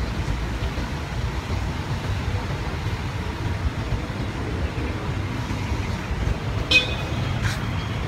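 Steady low rumble of outdoor street noise, with one short high toot about two-thirds of the way through.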